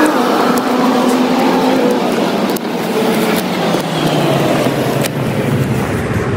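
A motor vehicle's engine running close by, its pitch falling slowly across several seconds.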